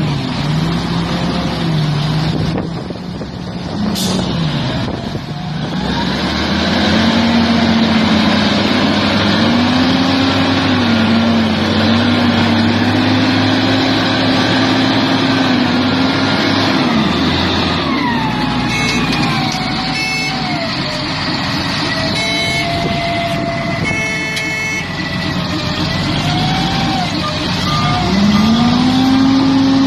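Heavy diesel earth-moving machinery at work: the engine revs up and down under load, with a higher whine that glides in pitch.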